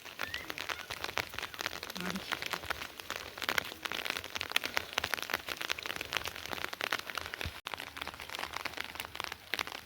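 Rain falling steadily, a dense run of small drop impacts on a hard surface. The sound cuts out for an instant about three-quarters of the way in.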